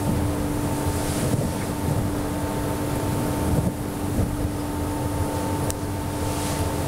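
Steady mechanical ventilation hum in a kitchen: a low rumble with a constant two-tone whine, with a faint click near the end.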